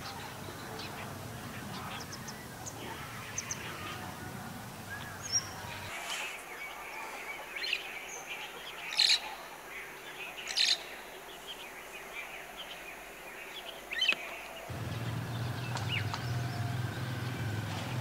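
Wild birds chirping in rural surroundings, with a few short, loud, sharp calls standing out near the middle.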